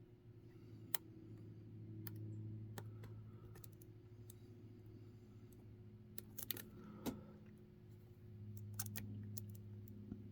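Small clicks and ticks of a pick and tension tool working the wafers of a Reese Towpower coupler lock, scattered irregularly with a quick cluster about six and a half seconds in. A low steady hum runs underneath.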